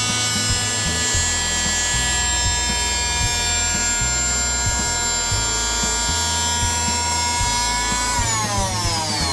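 Electric router with a slot-cutter bit running at speed while it cuts a groove along a panel edge, with a steady high whine. About eight seconds in it is switched off and the whine falls in pitch as the motor spins down. Background music with a steady beat plays underneath.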